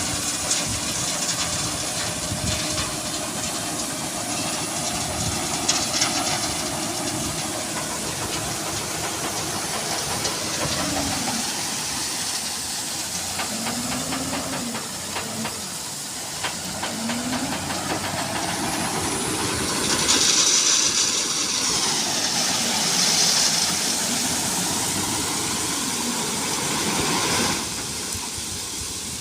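JCB 3DX backhoe loader's diesel engine running and revving up and down as it works. A loud hissing rush comes about twenty seconds in and lasts a few seconds.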